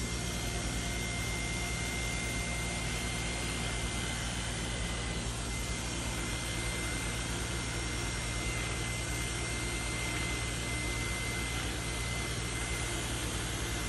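A small electric motor running steadily, with a low hum, a thin high whine and an even rushing noise.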